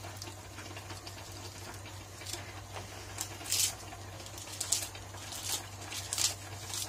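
Leaf lettuce being torn by hand and dropped into a bowl: a series of short, crisp rustles and crackles, coming more often from about two seconds in, over a low steady hum.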